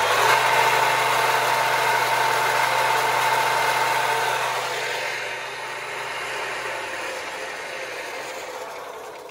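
A homemade garden shredder's planer cutter shaft, driven by a three-phase electric motor through a frequency inverter, running at speed with a steady whirring hum. The sound fades gradually over the second half and dies away at the end.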